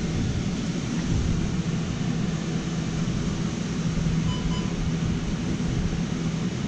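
Steady low machinery hum with a constant low drone and a wash of noise above it. Two faint short beeps about four seconds in.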